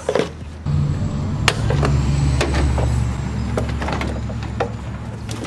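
Sharp plastic clicks and knocks as an air filter housing is unclipped and lifted out of an engine bay, over a steady low rumble like a vehicle engine running that starts under a second in.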